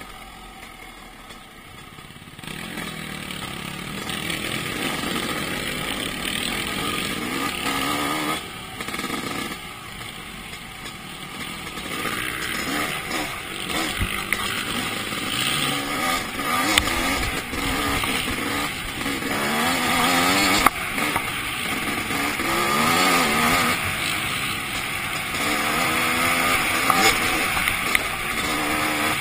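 A 2008 Suzuki RM250 single-cylinder two-stroke motocross bike's engine revving up and down as the rider rides the trail, its pitch rising and falling with the throttle. It is quieter for the first couple of seconds and eases off again for a few seconds near the middle before picking back up.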